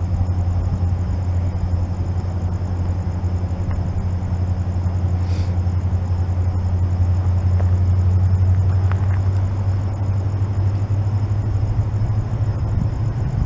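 Railroad crossing warning bell ringing in quick repeated strokes over a steady low diesel rumble from an approaching freight train's locomotives; the rumble grows louder and rougher near the end.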